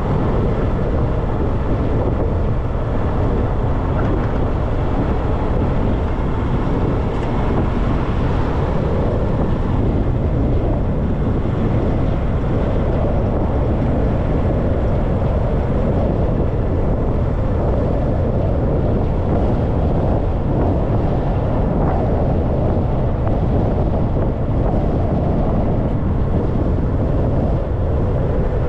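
Wind buffeting a car's hood-mounted GoPro microphone while driving, mixed with road and tyre noise: a steady low rumble.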